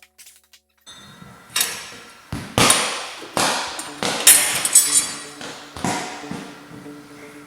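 A string of sharp metallic clanks and knocks, one roughly every half second, from hand tools working the 10 mm bolts that hold a utility vehicle's fuel tank.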